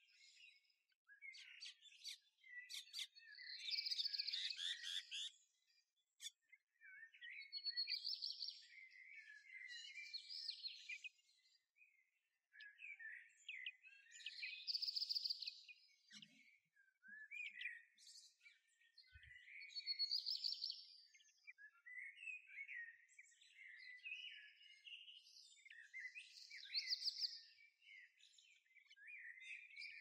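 Songbirds singing and chirping: a rich song phrase repeats about every five to six seconds, with shorter high chirps in between.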